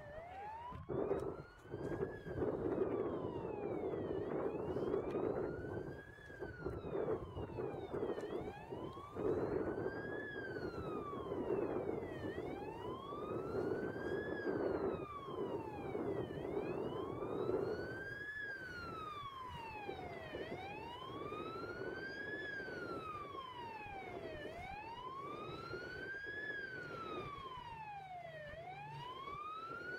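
Fire engine siren wailing, its pitch sliding slowly up and down about once every four seconds, with a steady noise underneath through the first half.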